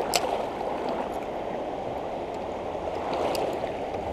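Shallow rocky river rushing steadily over stones, with a couple of short sharp clicks, one right at the start and one about three seconds in.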